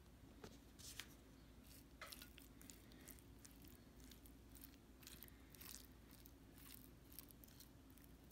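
Faint, irregular clicks and soft scrapes of a metal fork working through egg and vegetables on a plate.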